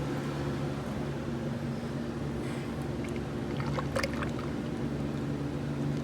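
Steady hum of an electric fan running, with a few light clicks and knocks about three and a half to four seconds in.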